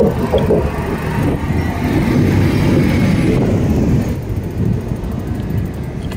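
Wind rushing over the microphone and road rumble from a moving bicycle, a steady low noise that swells slightly in the middle and eases off near the end.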